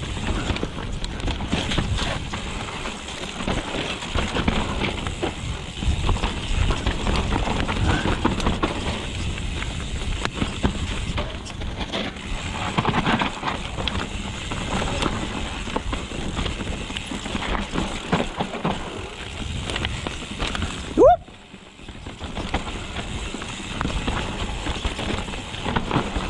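Mountain bike riding down a dirt trail: steady tyre and wind noise with the bike clattering over bumps. About 21 seconds in there is a short rising squeal, then about a second of near quiet before the trail noise resumes.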